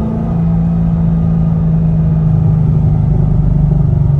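C6 Corvette Grand Sport's 6.2-litre LS3 V8 pulling under throttle, heard inside the cabin. The steady engine note steps down slightly in pitch about a third of a second in, then holds and grows a little louder.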